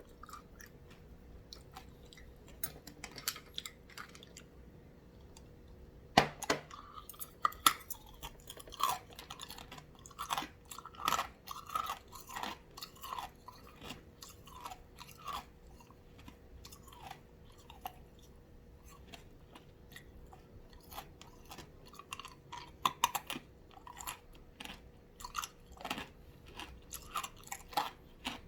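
Ice being bitten and crunched between the teeth: sharp cracking crunches, the loudest about six seconds in and a dense run from about ten to thirteen seconds, with quieter chewing in between.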